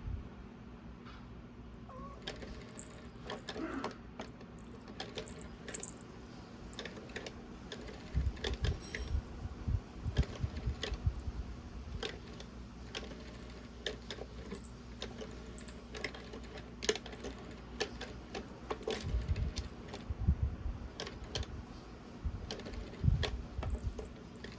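A cat playing with a toy: irregular clicks and taps with bursts of low thumps as the toy is batted and knocked about.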